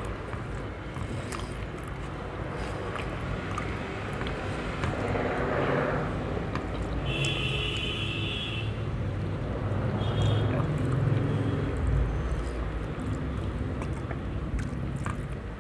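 Fingers mixing and picking up rice and curry on a steel plate, with faint scattered clicks, over a steady low background rumble. A high tone is held for about a second and a half some seven seconds in, and comes again briefly near ten seconds.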